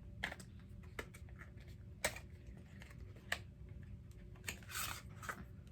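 Cosmetic packaging being handled: scattered light clicks and taps, with a short rustle near the end.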